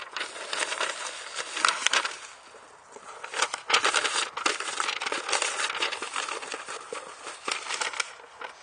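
Paper and cardboard rustling and crinkling as a letter sheet and a cardboard box with crumpled paper packing are handled. It comes in uneven bursts of sharp crackles, busiest in the middle.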